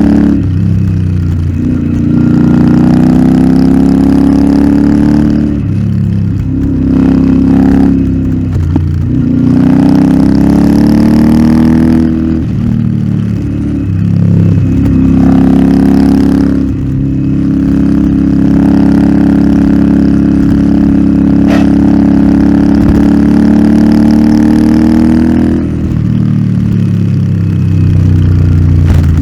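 Royal Enfield Interceptor 650's parallel-twin engine through an aftermarket Nuke exhaust, pulling up in pitch and dropping back several times as it is ridden through the gears and eased off. It then holds a steady pitch for several seconds before pulling up again near the end.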